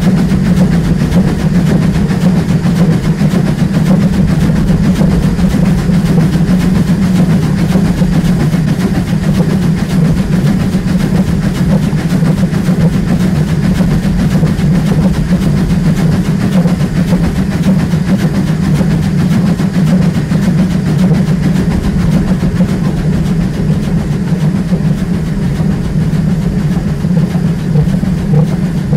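Steam locomotive running along the line, heard close up from a microphone mounted on the front of the engine: a loud, steady mix of running gear and wheels on the rails.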